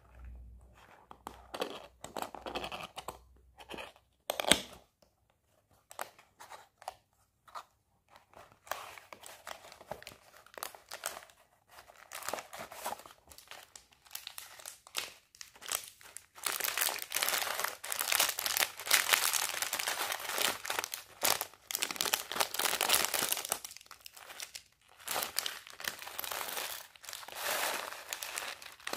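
Scattered rustles and taps of a cardboard toy box and paper instruction sheet being handled, then from about halfway a long stretch of dense crinkling as a clear plastic bag of small plastic building bricks is torn open and handled.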